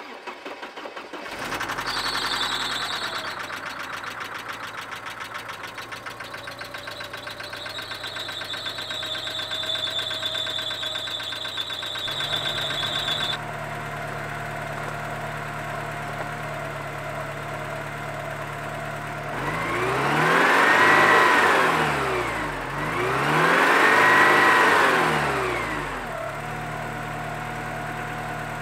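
Porsche 944 four-cylinder engine catching about a second in and running with loud, rapid valve-train tapping for roughly the first twelve seconds, which the owner believes is one slightly soft new hydraulic lifter not yet full of oil. The tapping gives way to a steadier idle, then the engine is revved twice, each a rise and fall in pitch of about three seconds, before settling back to idle.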